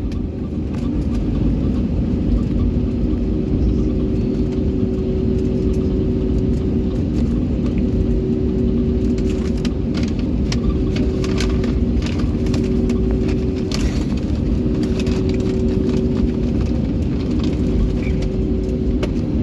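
Airliner cabin noise before takeoff: the engines run at a steady low power with a deep rumble and an even hum. Light knocks and rattles come now and then, mostly in the middle.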